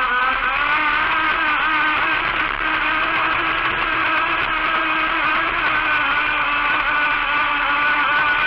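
Electric motor of an RC tunnel boat whining at speed, heard from a camera mounted on the hull, over a hiss of water and air. The pitch dips at the start, then holds fairly steady with small wavers as the throttle changes.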